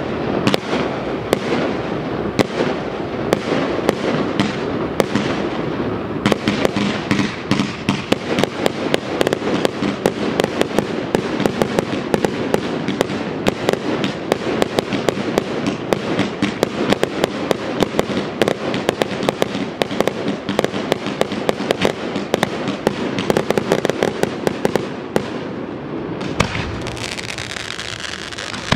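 Fireworks display: a dense, continuous barrage of sharp bangs and crackles, several a second, over a steady low rumble. Near the end the bangs thin out.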